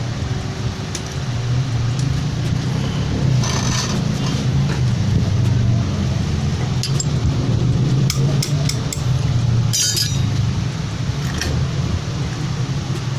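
An engine running steadily at idle, with a few light metallic clinks of hand tools and parts at intervals.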